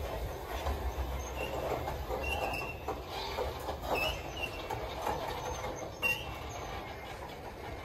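Freight train cars rolling past: a steady low rumble, with wheels knocking over rail joints a few times and brief high-pitched wheel squeals.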